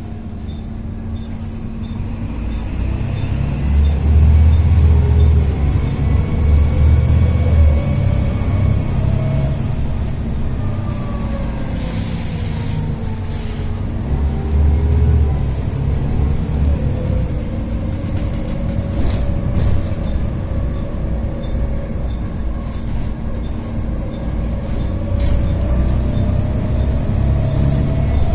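Plaxton President double-decker bus under way, heard from inside the lower deck: a deep engine rumble with a loud whine from its ZF automatic gearbox. The whine rises in pitch as the bus gathers speed and drops back several times.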